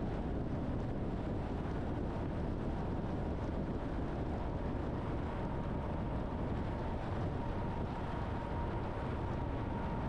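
Truck driving at steady speed: constant low road and engine noise. A faint steady whine comes through plainer about halfway.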